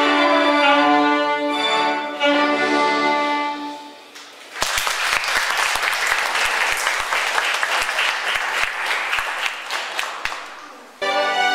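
A violin and cello ensemble plays its closing phrase and holds a final chord, which fades away about four seconds in. An audience then applauds for about six seconds. Near the end the applause cuts off abruptly and different music starts.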